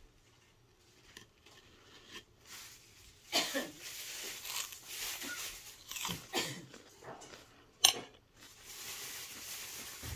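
Crinkling and rustling of plastic food packaging being handled and torn open, starting a few seconds in, with a single sharp click about two-thirds of the way through.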